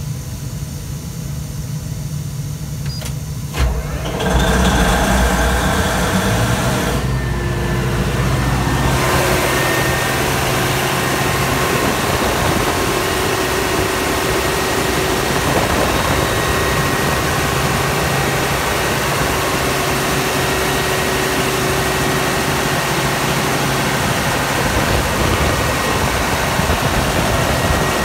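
Mitsubishi S12R-PTA V12 diesel generator engine, stopped at first with zero oil pressure. A sharp click comes about three and a half seconds in, the engine starts about four seconds in, and after a few seconds it settles into steady running at 1500 rpm.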